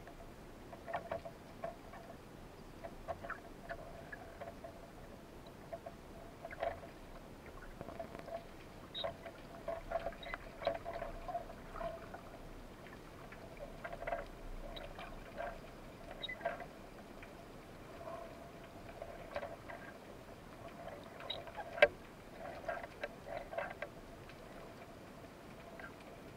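Underwater ambience picked up by a submerged camera: irregular clicks and short crackles, several a second at times, over a faint murmur, during a freediver's descent.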